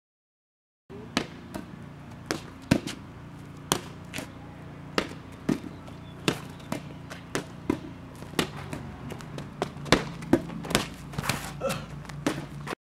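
A big inflatable play ball bounces on a concrete driveway and is slapped back and forth by hand in a rally. It makes a string of sharp smacks, roughly one to two a second, over a steady low hum.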